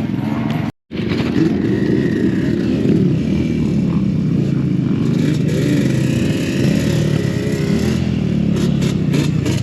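Off-road ATV engines running and revving, their pitch wavering up and down. The sound cuts out completely for a moment about a second in.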